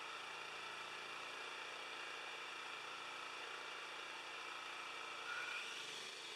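Honda GX390 single-cylinder engine running a generator at a steady speed on its test run after a valve reassembly. About five seconds in a brief rising whine comes up over it.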